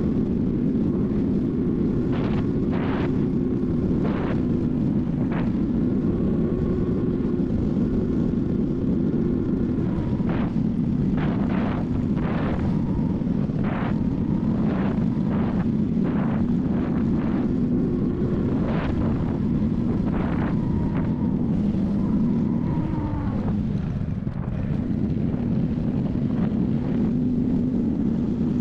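Honda Cross Cub 110's small single-cylinder engine running steadily under way, with wind noise on the microphone. The engine note drops briefly about 23 seconds in, then picks back up.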